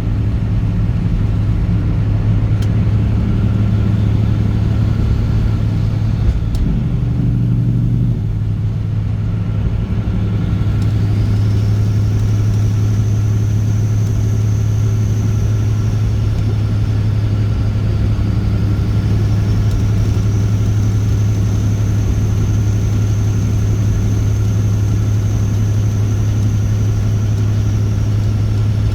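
Straight-piped Caterpillar C15 ACERT straight-six diesel in a semi truck running steadily under way with a deep, even drone. Its pitch steps briefly about seven seconds in, and a high, thin whine comes in around eleven seconds and holds.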